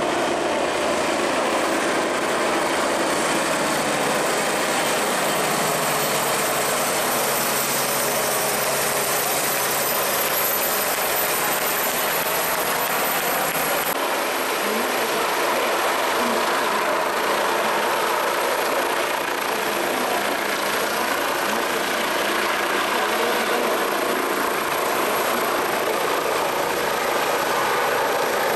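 Two twin-turbine helicopters, an AgustaWestland AW169 and an AW109 Trekker, flying a display: a steady rush of rotor and turbine noise. The sound changes abruptly about halfway through.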